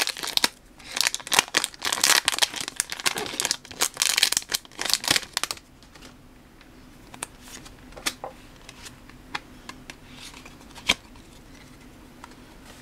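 Foil booster-pack wrapper crinkling and tearing as the pack is opened, for about the first five and a half seconds. After that it goes quiet, with a few light taps and clicks as the cards are handled.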